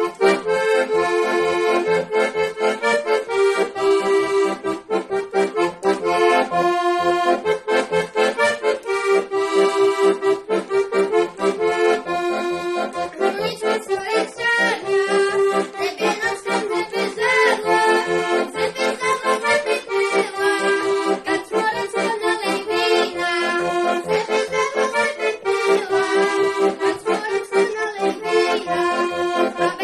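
A small red button accordion playing a Slovak folk tune solo: a reedy melody over held chords, with a steady beat of bass notes.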